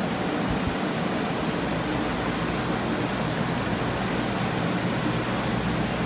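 Carpet-drying air movers running together with a drying unit: a steady rush of blown air over a low hum. They are drying out flood-soaked floors.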